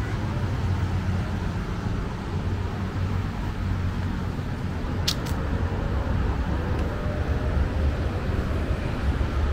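Steady city road traffic, a continuous low rumble of passing cars and buses, with two brief high squeaks about halfway through.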